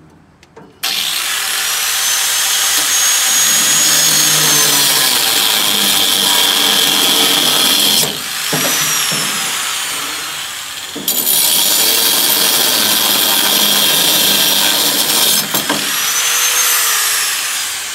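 Angle grinder with a cut-off wheel spinning up about a second in and cutting through a length of angle iron, with a steady high whine. The cut eases off for a few seconds in the middle, resumes, then the grinder winds down near the end.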